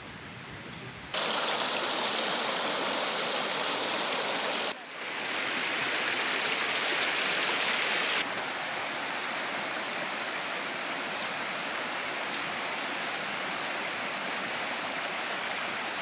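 Shallow creek flowing over stones: a steady rushing of water that jumps abruptly in level about one, five and eight seconds in.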